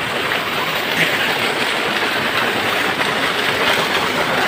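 A small waterfall pouring into a pool, a steady rush of water close by.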